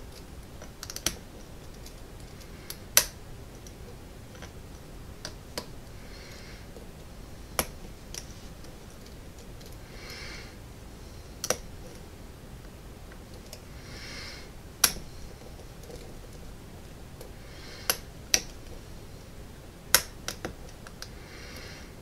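A lock pick working the pin tumblers of a solid brass American padlock, whose driver pins are serrated. About a dozen sharp clicks come at irregular intervals, with brief scraping rushes from the pick roughly every four seconds.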